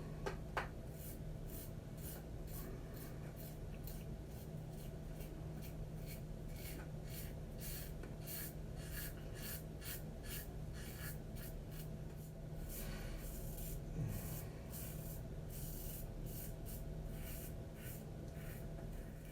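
Razor blade scraping across lathered stubble in short repeated strokes, a few a second: the second pass of a wet shave.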